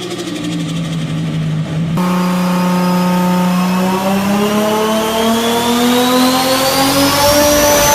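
Turbocharged Toyota Supra engine holding steady revs. About two seconds in the sound changes abruptly, and an engine note climbs slowly while a high turbo whistle rises with it as the turbo spools up.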